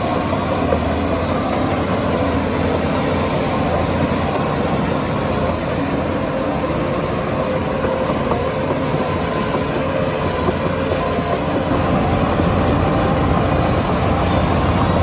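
Heavy diesel engine of a Shantui bulldozer running steadily, with a strong low rumble that grows a little louder near the end.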